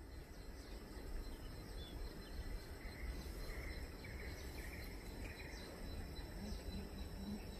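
Faint outdoor countryside ambience: a steady low rumble, a thin continuous insect trill, and a few short bird chirps near the middle.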